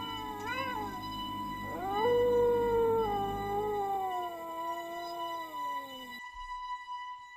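Canine howling: a short wavering howl, then a long one that rises and slides slowly down in pitch, cutting off abruptly about six seconds in. A faint steady whine runs underneath.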